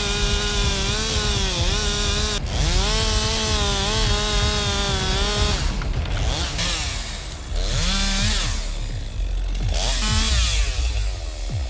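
Chainsaw running at high revs under load as it cuts through wood, its pitch wavering, with a brief drop about two seconds in. In the second half the revs fall and climb again several times.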